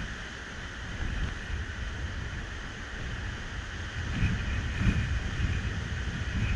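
Wind buffeting the microphone in gusts, strongest about four to five seconds in, over a steady hiss of Baltic surf breaking along the beach.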